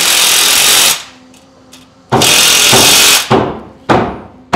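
Cordless drill with a socket driving fasteners into the steel garage door track. It runs twice for about a second each, then gives three short blips as the fastener seats.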